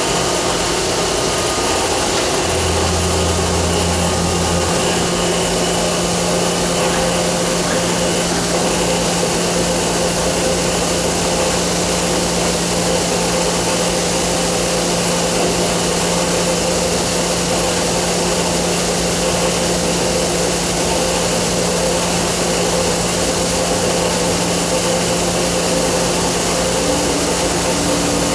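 Johnford SL650 CNC turning center running under power: a steady mechanical whir and hiss with several held tones. A deeper hum comes in for about two seconds early on, and a new tone joins near the end as the machine's running speed changes.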